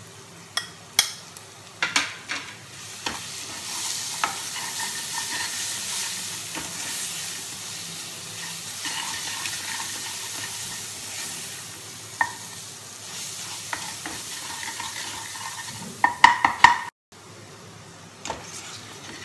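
A steel spoon stirring and scraping ground spices into onion-ginger-garlic masala in a hot kadhai, clinking against the pan several times. The masala sizzles as it fries in oil, steadiest through the middle. There is a loud run of clinks near the end.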